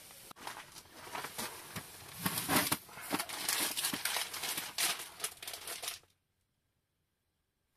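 Plastic packet of winter groundbait crinkling and crackling as it is handled, then stopping abruptly about six seconds in.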